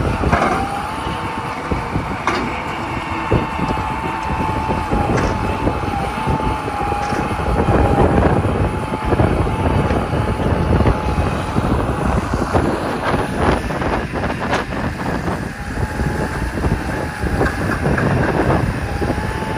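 Hitachi EX300 hydraulic excavator's diesel engine running under load as it digs, with a steady, slightly wavering high whine over the deep rumble and repeated clanks and scrapes of the bucket in the soil.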